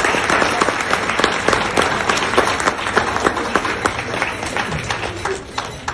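An audience applauding: many people clapping together, thinning out and dying away near the end.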